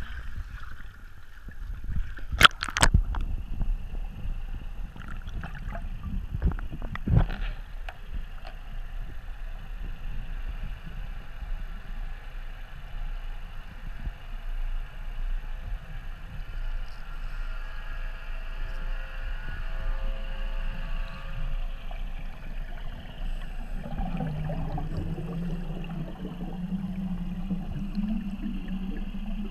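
Muffled underwater sound picked up by an action camera: sharp knocks about two and a half seconds in and again about seven seconds in as it goes under, then a steady dull water rumble. About 24 seconds in, a steady low hum joins it.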